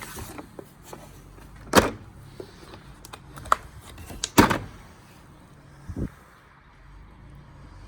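A Torx bit socket set being handled: a few sharp clicks and clatters, the loudest about two seconds in and again about four and a half seconds in, then a dull thump near six seconds.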